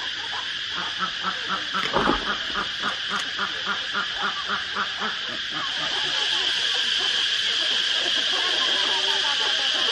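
Ducks quacking in a quick, regular series, about three quacks a second, for the first five seconds, with one louder knock about two seconds in. From about six seconds, chickens in a yard give soft chirping calls over a steady high-pitched drone.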